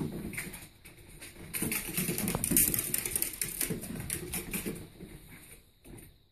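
A small pet's claws skittering and pattering in quick, irregular clicks on a parquet floor as it scampers around. The scrambling is densest in the middle and dies away near the end.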